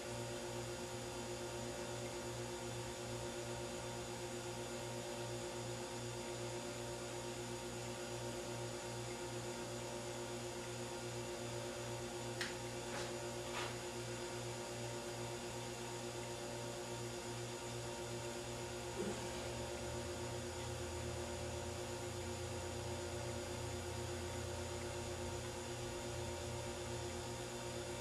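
Steady electrical mains hum with a few faint clicks midway.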